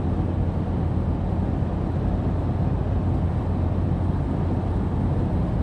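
Steady low rumble of wind buffeting the microphone mixed with the running noise of the vehicle it is riding on.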